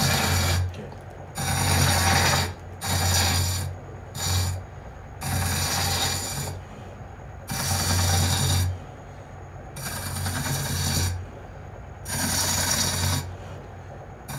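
A hand-held turning tool cutting the outside of a spinning wooden cup blank on a lathe. It goes in about eight passes, each a second or so of coarse scraping hiss, with short pauses between them.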